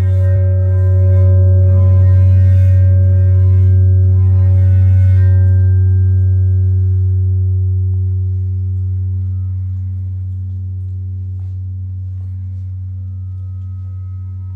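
Large round metal Chladni plate ringing after being rubbed with a rubber-ball mallet: a loud, deep, steady hum with a set of higher overtones. The overtones fade after about five seconds, and the whole tone slowly dies away.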